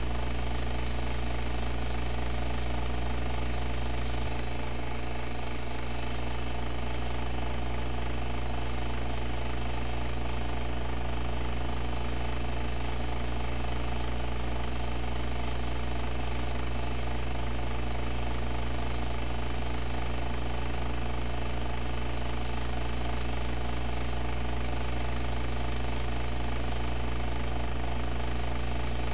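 A steady low hum with a buzz of many even overtones, unchanging throughout, with a slight shift in its lowest part about four seconds in.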